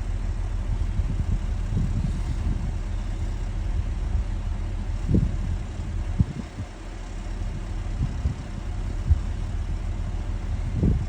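The JLG 1255 telehandler's diesel engine idling steadily, with a few short knocks. A forced exhaust regeneration has just been interrupted, so the engine is at plain idle rather than ramped up.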